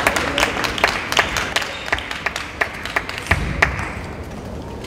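Spectators clapping in a steady rhythm, about three claps a second, dying away about three and a half seconds in.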